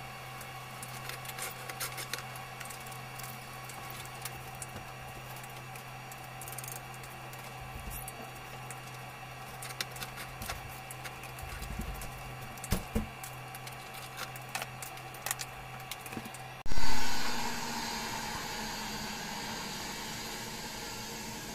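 Steady hum and faint hiss of a small gas soldering torch at work on a bronze model, with light clicks and taps of metal tools. About seventeen seconds in, the sound changes abruptly to a loud rush that fades into a steady hiss.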